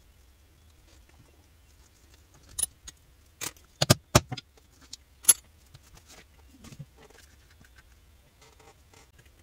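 A few sharp clicks and knocks of leather pieces and a hand tool being handled and set down on a hard work board, loudest about four and five seconds in, followed by soft rustling of the leather.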